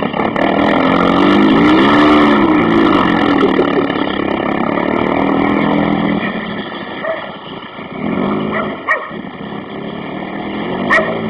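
Honda Civic with a swapped-in H22A four-cylinder engine driving on snow, running through an exhaust that still needs fixing; the engine revs up and back down once, then runs steadily, fades as the car moves off and comes back. A dog barks a couple of times near the end.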